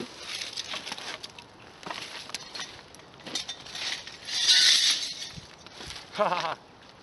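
A pane of glass smashing once, about four seconds in, with a short crash of shattering glass; a few small clicks and knocks come before it.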